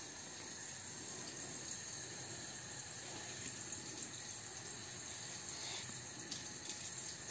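A faint steady hiss, with a few soft scraping strokes of a hand vegetable peeler taking the skin off a shark fin gourd in the second half.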